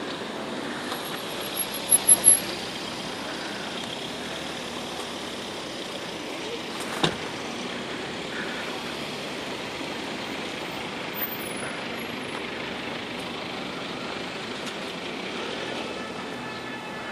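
Steady street traffic noise from passing road vehicles, with a few short sharp clicks about two seconds in and one more near the middle.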